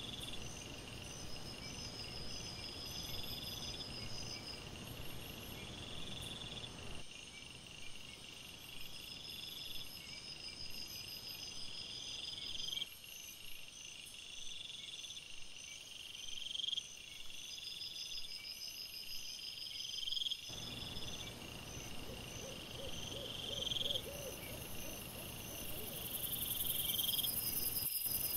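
Crickets chirping at night: several high calls overlap, one rising and repeating every second or two, others as steady trains of short pulses. Under them is a low hiss that steps up or down where one camera clip cuts to the next.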